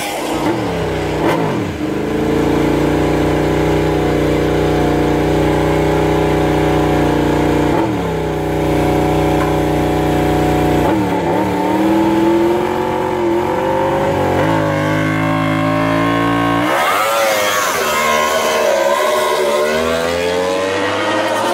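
Yamaha YZR-M1 MotoGP bike's inline-four engine running at a steady fast idle with the bike standing still, its pitch dipping briefly about 8 seconds in and wavering between about 11 and 16 seconds. About 17 seconds in it gives way abruptly to a different engine sound rising in pitch.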